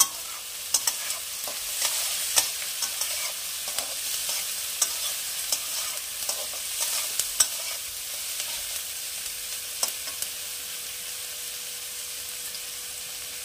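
Chopped onions, garlic, ginger and green chillies sizzling in hot oil in a metal kadai, stirred with a steel spatula that scrapes and clicks against the pan. The clicks thin out over the last few seconds, leaving a steady sizzle.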